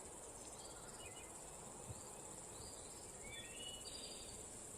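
Faint steady high-pitched insect trill, with a few faint short chirps over it.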